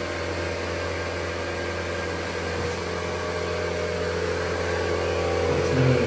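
Dyson 360 Vis Nav robot vacuum running, its suction motor whirring steadily, getting a little louder near the end.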